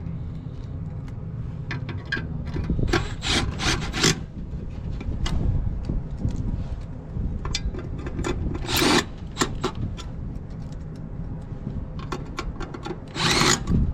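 Scraping, rubbing and clicking as motor parts are handled and fitted, with a few louder scrapes, over a steady low rumble.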